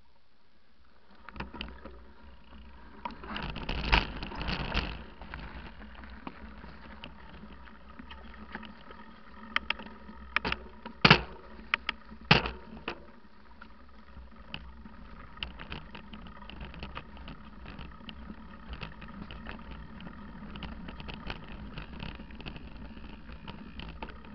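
Mountain bike descending a fast dirt forest trail: tyres rolling and the bike rattling over the ground, under a steady low rumble. There are loud sharp knocks a few seconds in and two more about halfway through, a little over a second apart.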